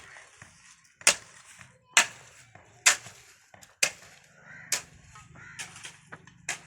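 Hammer blows at a steady pace, about one strike a second, each a sharp crack with a short ring.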